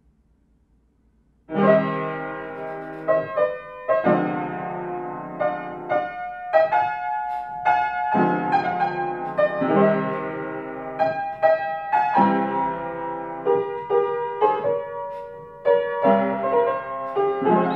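Near silence, then about a second and a half in, piano music begins: a run of notes and chords that carries on steadily.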